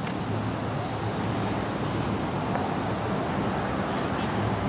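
Street traffic: the steady sound of car engines and tyres as cars move slowly past, with a low engine hum.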